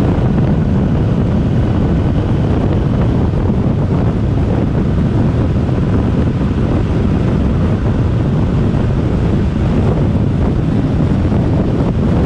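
Steady, loud wind rush buffeting the microphone of a Yamaha Tracer 900 motorcycle riding at about 75 to 85 km/h, with engine and road noise blended in underneath.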